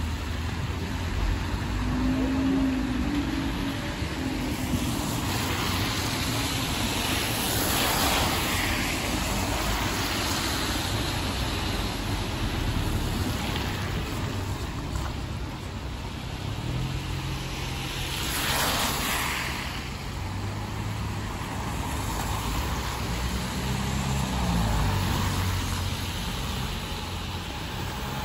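Police vehicles, a police car and a police van, moving slowly past with engines running and tyre noise. The sound swells twice, about eight seconds in and again near nineteen seconds, as vehicles pass. No siren is sounding.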